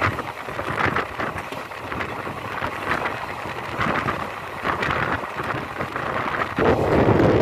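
Express train running, a steady rushing noise with wind buffeting the microphone, which turns suddenly louder and deeper about six and a half seconds in.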